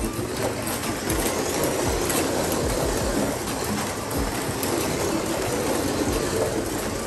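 1/24-scale Carrera Digital slot cars running on the plastic track: a steady whir of small electric motors and wheels, with a few faint clicks.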